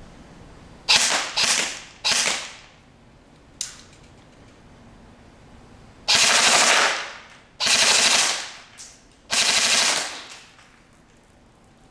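A&K LR300 airsoft electric rifle with a version 2 gearbox firing on full auto. Three quick short bursts come first, then a single shot, then three longer bursts of about a second each, with a brief burst between the last two.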